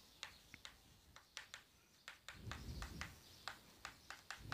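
Chalk tapping and scraping on a blackboard as words are written: a faint, irregular run of short clicks.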